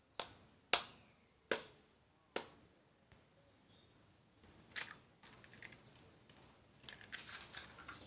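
A raw egg tapped sharply four times against a hard edge, then its shell cracked and pulled apart with a run of small crackles as it is broken open.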